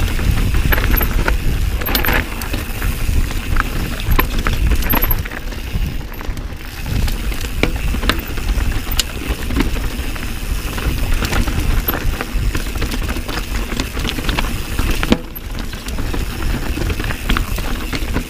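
Mountain bike riding down a rough trail: a continuous low rumble of tyres over dirt and rocks, with the chain and frame rattling and clacking all the way through.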